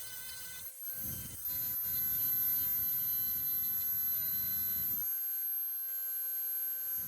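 Dremel rotary tool running at high speed with an abrasive head, a steady high whine, working on metal to strip old paint and rust. It gets louder about a second and a half in.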